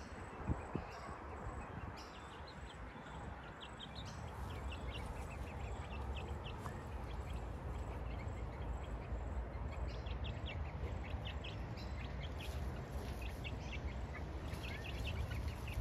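Birds chirping outdoors in clusters of quick, short high calls, busier in the second half, over a low steady rumble.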